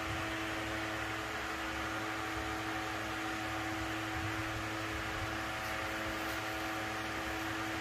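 A small motor running steadily: an even hiss with a constant hum under it, unchanging throughout.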